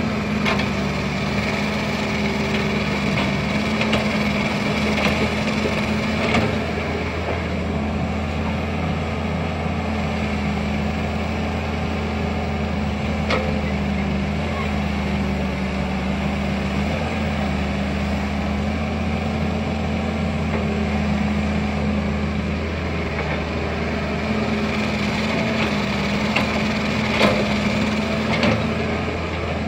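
Excavator's diesel engine running steadily under load while it digs soil, with a few sharp knocks and cracks from the bucket and soil, two of them near the end.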